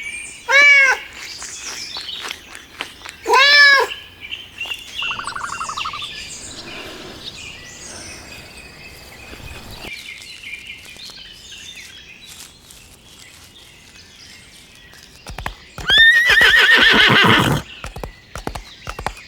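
Farm animal calls: two short, loud arched calls near the start, light bird chirping in the quieter middle stretch, and a longer, loud pulsing call near the end.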